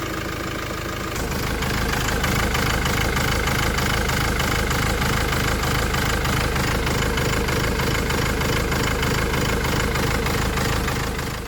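Peugeot Boxer 2.2 HDi diesel engine idling quite unevenly, its revs shaking, with a deeper rumble setting in about a second in. The rough running follows refitting repaired injectors without recoding them to the engine computer; the high-pressure fuel pump regulator is the usual suspect for such running.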